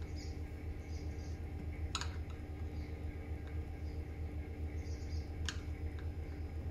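Screwdriver tips working an old rubber seal into the plastic tank neck of a Solo backpack sprayer: faint high squeaks and a few small clicks, with two sharper clicks about two seconds and five and a half seconds in. A steady low hum runs underneath.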